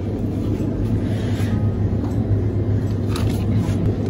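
Steady low hum and rumble from a glass-door refrigerated drinks cabinet standing open, with a few faint ticks.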